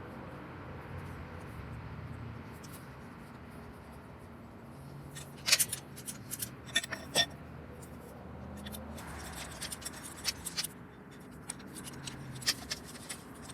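Metal clinks and clicks of a floor jack and tools being handled: a few sharp clinks about five to seven seconds in, then scattered lighter clicks, over a low steady hum.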